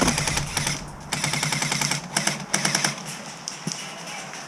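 Airsoft gun firing on full auto in two long rapid bursts, emptying a magazine, then trailing off into a few scattered shots near the end.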